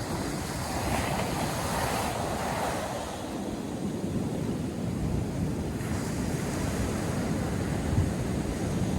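North Sea surf breaking and washing on a sandy beach as a steady hiss, with a wave washing in about a second or two in. Wind buffets the microphone with a low rumble throughout.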